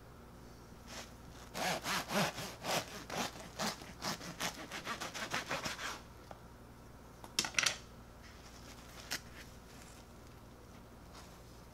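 A knife sawing through the crust of a freshly baked loaf, quick back-and-forth strokes for about four seconds. A brief crackle follows a little later.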